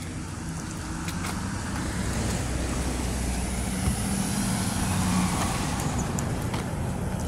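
Cars and a pickup truck driving by on a street: a steady engine hum with tyre noise that grows louder as the pickup passes close by near the end.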